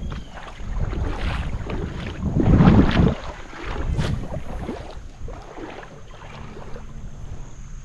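Water sloshing and splashing, with wind buffeting the microphone; the loudest surge comes about two and a half seconds in, and there is a sharp click about a second later.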